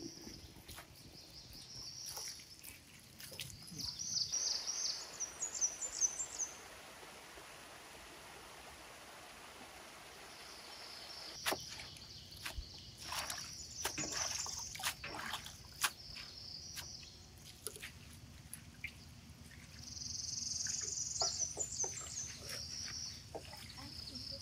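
Water from a garden hose running into a bowl of leafy greens, with splashes and short knocks as the greens are washed by hand. Songbirds chirp in three short spells over it.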